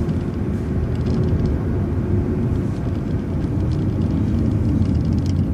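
City transit bus running, heard from inside the bus: a steady low engine rumble with a faint steady whine above it.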